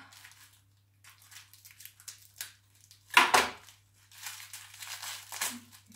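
Wrapper of a pack of ladyfinger biscuits crinkling and tearing as it is opened by hand, with the loudest crackle about three seconds in.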